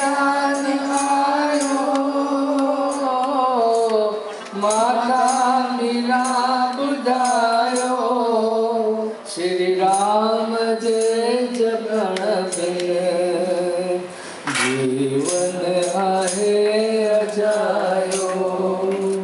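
A man singing a Sindhi devotional bhajan into a handheld microphone over a PA, drawing out long wavering notes in phrases broken by short pauses for breath, over light percussion.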